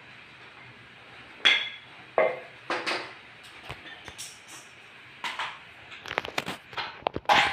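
Teak slats knocking and clattering on a ceramic tile floor as they are set down and shifted: a few separate knocks, then a quicker run of small clicks near the end.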